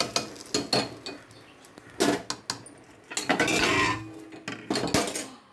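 Metal ladle clinking and scraping against the inside of a metal pressure cooker pot: a series of sharp knocks, a longer scrape a little past the middle, and a final knock near the end.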